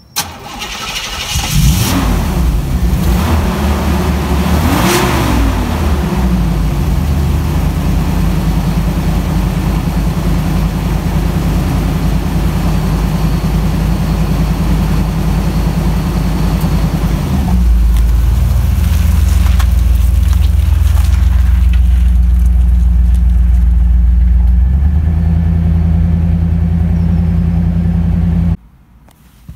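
1982 Chevrolet Camaro Z28's 305 V8 starting, catching, revving up twice and then settling into a steady idle. About seventeen seconds in the idle note drops deeper and gets louder, and near the end the engine shuts off abruptly.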